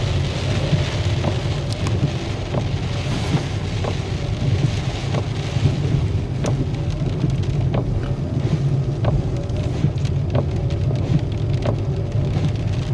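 Inside a moving car in the rain: a steady low engine and road rumble, with raindrops ticking irregularly on the roof and windscreen.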